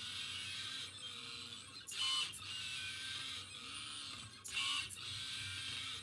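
Pen plotter's stepper motors whining and its belt-driven carriage running as it draws, the pitch shifting with the carriage's speed. Twice, about two seconds in and again past the middle, a louder half-second stretch of movement starts with a sharp click.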